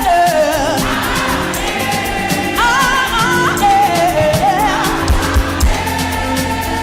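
Live gospel praise-and-worship music: a singer and congregation singing over a church band with keyboard, bass and drums keeping a steady beat.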